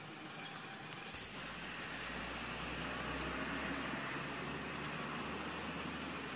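Steady outdoor hiss of ambient noise, with a low wind rumble on the microphone for a few seconds and a short high falling chirp just after the start.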